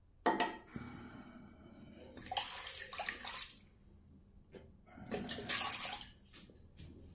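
Tap water running and splashing in a bathroom sink as a shaving razor is rinsed between passes, starting suddenly just after the start and coming in two louder splashing spells about two and five seconds in.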